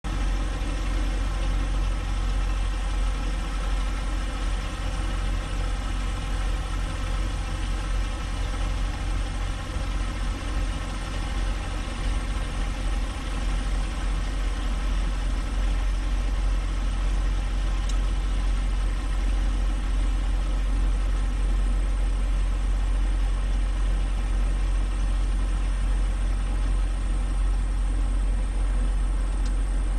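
Semi-truck's diesel engine running steadily at low revs, heard from inside the cab as an even, deep drone.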